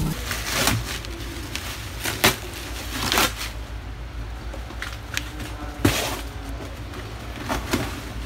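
Plastic wrapping and cardboard packaging being pulled and handled during unpacking, giving scattered crackles, rustles and a few sharp knocks over a steady low hum.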